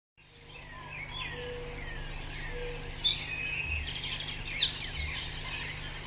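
Several birds calling and chirping, fading in at the start: repeated falling whistles, then a busier stretch of quick chirps and trills about halfway through.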